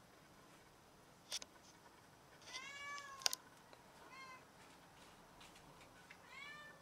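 Cat meowing three times: a long meow about two and a half seconds in, a short one about four seconds in, and another near the end. Two sharp clicks stand out, one a little after a second in and a louder one at the end of the first meow.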